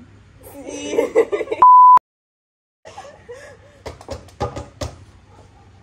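Excited voices cut off by a short, loud single-tone censor bleep about a second and a half in, followed by a moment of dead silence from an edit. Then laughter and a quick run of sharp slaps.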